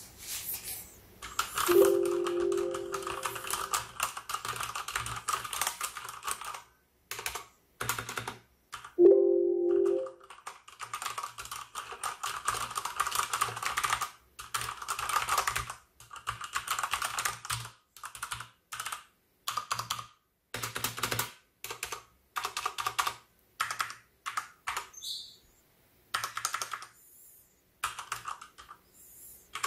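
Typing on an MSI Vigor GK80 mechanical keyboard with Cherry MX switches: fast runs of clicky keystrokes in bursts, broken by short pauses.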